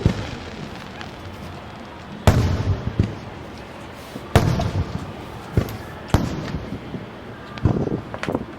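Aerial fireworks bursting at a distance: irregular sharp bangs, the loudest about two, four and a half, six and seven and a half seconds in, each trailing into a rumbling echo, with smaller pops between.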